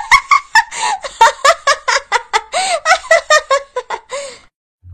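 A person laughing hard in rapid, high-pitched giggles that break off shortly before the end, followed by a brief low thud.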